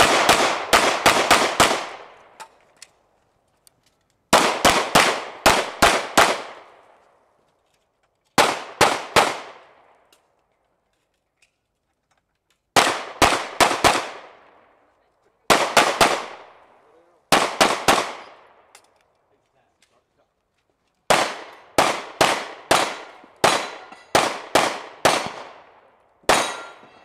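Pistol shots fired in quick strings of two to seven, with silent pauses of one to four seconds between strings; a long run of about a dozen shots comes near the end.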